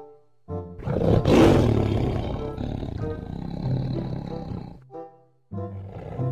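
A tiger roars, starting about half a second in, loudest in the first two seconds and trailing off over about four seconds, over background music.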